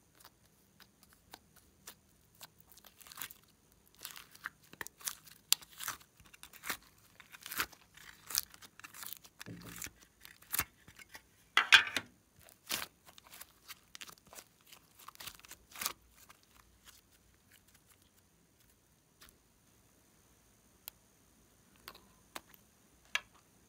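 Thick slime being pressed, peeled out of its plastic container and squeezed by hand, giving sticky crackling and popping clicks. The loudest tear comes about halfway through, and near the end only a few scattered clicks are left.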